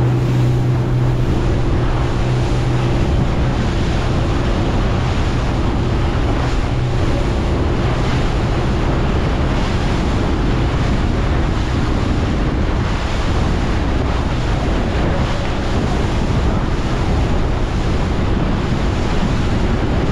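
Small boat running at speed: heavy wind buffeting the microphone over the rush of water from the hull and wake. A low steady motor hum sits underneath for the first few seconds, fading out partway through.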